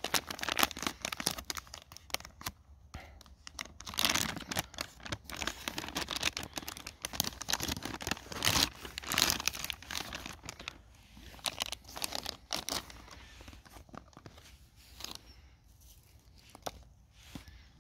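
An MRE entrée pouch being pulled out of its flameless ration heater bag: plastic and foil packaging rustling and crinkling in irregular bursts, quieter after about 14 seconds.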